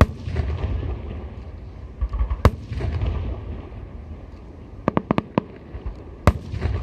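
Aerial fireworks shells bursting: sharp bangs with low rumbling booms between them, and a quick run of about five cracks shortly before a last loud bang near the end.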